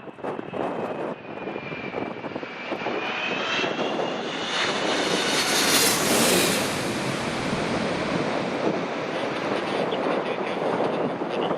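Jet airliner passing low overhead: its engine whine bends in pitch as it approaches, peaks loudly about six seconds in, then fades to a rumble. Gusts of strong wind buffet the microphone throughout.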